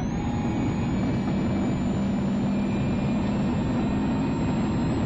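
Mitsubishi Lancer Evo 6.5 WRC rally car heard from inside the cabin, its turbocharged four-cylinder engine running at steady revs, over a constant low rumble of tyres on the gravel road.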